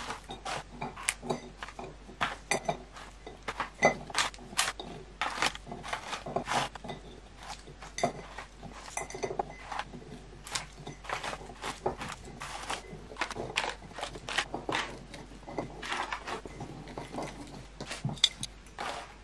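Biscuits being picked out of plastic packaging trays and dropped into a large glass jar: many light, irregular clicks and clinks of biscuit on glass and plastic. Near the end the glass lid is set on the jar.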